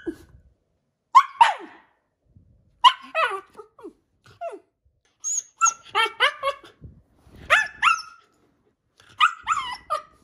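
Shiba Inu giving short, high barks and yips in quick clusters, about six times, while tugging at a chew toy: excited play barking.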